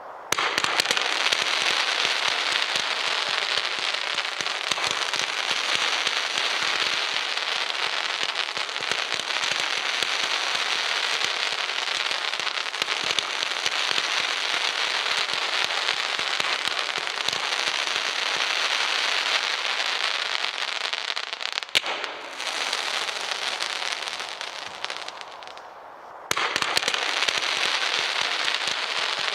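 Low-noise firework display cake firing with no bangs, just dense, continuous crackling from its crackling fireballs and sizzling tails. About 22 s in there is one sharp crack, after which the crackle thins and fades for a few seconds, then starts again suddenly at full strength.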